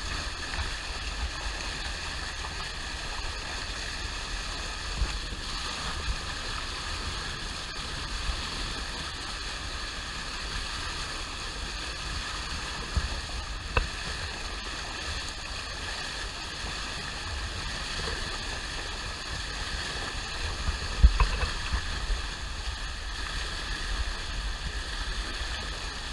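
Steady rush of a boat's bow wave foaming along the hull while under way, with low wind buffeting on the bow-mounted action camera. A few short knocks, the loudest about two-thirds of the way through.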